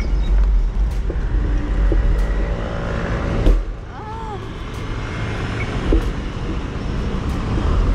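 Road traffic over a steady low rumble of wind on the microphone, which drops away for a moment about three and a half seconds in.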